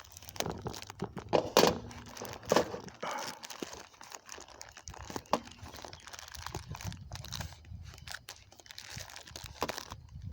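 Parcel packaging being cut and torn open with a blunt knife: irregular crinkling, tearing and scraping, with a few sharper crackles in the first three seconds.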